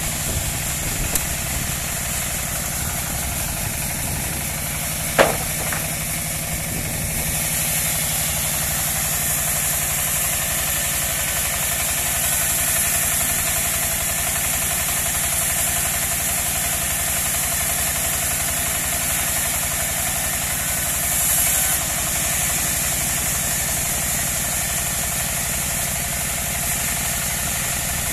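Engine of a portable bandsaw sawmill running steadily, with one sharp knock about five seconds in. A higher hiss joins the engine from about seven seconds on.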